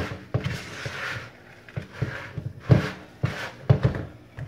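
A spatula stirring a sticky oat granola mixture in a plastic mixing bowl: irregular scrapes and knocks against the bowl's sides.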